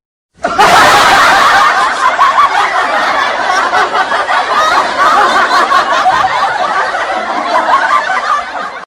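Laugh-track sound effect: a crowd laughing, many voices overlapping, starting abruptly about half a second in and fading out near the end.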